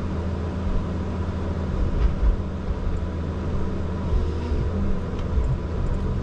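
Komatsu 901 forestry harvester running steadily, its engine and hydraulics heard from inside the cab as the boom moves the C93 harvester head, with a few low thuds about two seconds in.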